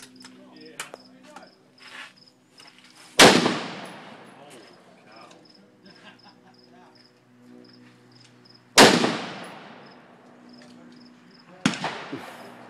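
.22 firearm fired three times, a few seconds apart, each shot a sharp crack with a trailing echo; the third shot is quieter. Insects chirp in regular pulses between the shots.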